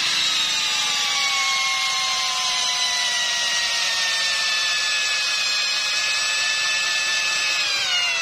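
DEWALT-branded brushless cordless drill in drill mode driving a 10 cm wood screw into hard, dry longan wood. Its motor gives a steady whine that slowly drops in pitch as the screw sinks under load, then cuts off near the end as the screw is almost fully driven.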